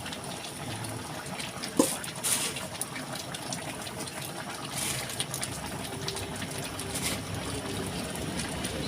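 Pot of chicken curry in coconut milk simmering, a steady bubbling hiss as it comes up toward the boil, with a few light clicks.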